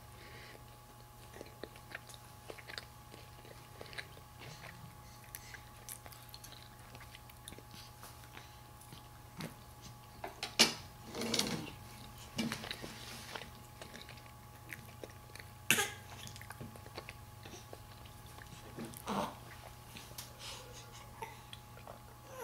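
Small clicks and rustles of a baby handling and mouthing plush and rattle toys on a play gym, over a faint steady hum. A few louder knocks stand out, the loudest about ten and a half seconds in and another near sixteen seconds.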